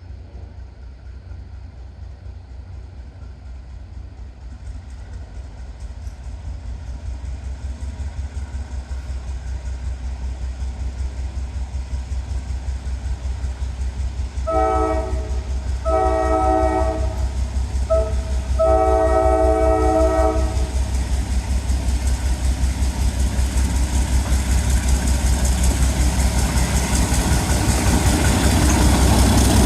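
ALCO RS3 diesel locomotive's V12 engine labouring uphill with a steady, pulsing rumble, growing louder as it approaches. About halfway through, its air horn sounds the grade-crossing signal: long, long, short, long.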